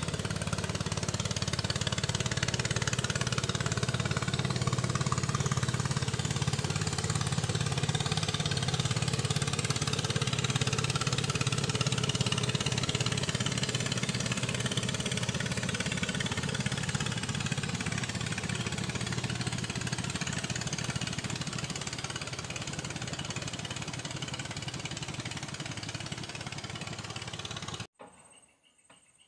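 A small riverboat's engine running steadily as the boat crosses the river, loudest in the first half and slowly easing off, then cutting off suddenly near the end.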